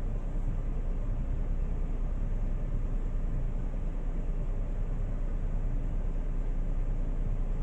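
Steady low background rumble and hiss with a low hum underneath, unchanging throughout; no speech or music.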